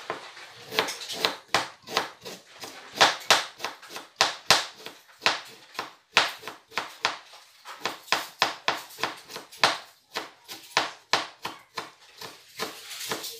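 Kitchen knife slicing a fresh bamboo shoot on a plastic cutting board: a quick run of sharp knife taps against the board, about three a second.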